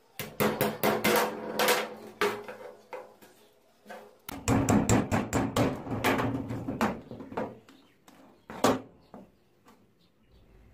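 Metal hammer rapidly striking a hand-held tool set against the rusty steel clamp bolt on a kick scooter's steering tube, knocking the stuck bolt out. It comes in two runs of quick blows with a short break about four seconds in, then one harder single blow near the end.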